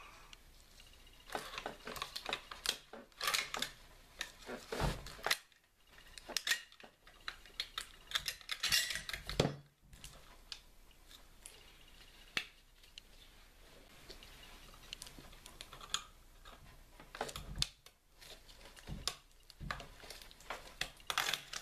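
Small metal clicks, scrapes and rattles of a Tokarev SVT-40 rifle's bolt cover being slid forward and lifted off, and its rear recoil springs and guides being eased back and pulled out by hand. They come in irregular clusters with quieter pauses between.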